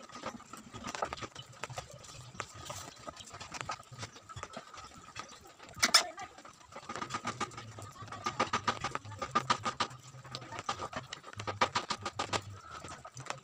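Hand screwdriver driving wood screws into a plywood speaker cabinet. It makes quick runs of creaking clicks as the screws turn and bite into the wood, with one sharp click about six seconds in.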